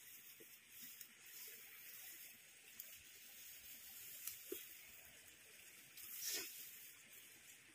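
Near silence with faint rustling as hands move through rice plants, and one brief louder swish of leaves about six seconds in.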